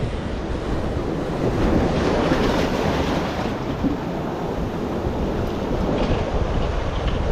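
Sea surf washing over shore rocks, a steady rushing noise mixed with wind buffeting the microphone.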